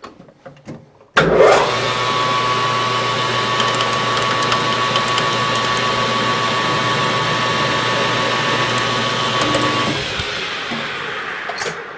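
12x36 import lathe switched on about a second in, its motor and spindle coming up to speed with a rising whine, then running steadily with a steady whine while a center drill in the tailstock spot-drills the part in the chuck. Near the end the lathe is switched off and spins down.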